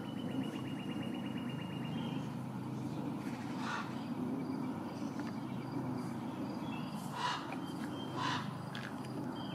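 Wild birds calling in woodland: a rapid trill for the first two seconds, then three short harsh calls spread through the rest, over a steady low background rumble.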